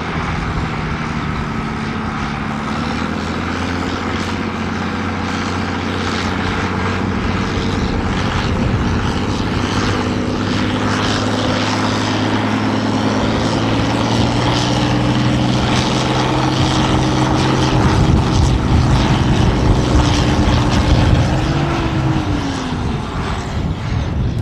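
International 1466 tractor's turbocharged six-cylinder diesel running hard under full load as it drags a weight-transfer sled, growing louder through the pull. Near the end the engine note drops in pitch as the pull finishes.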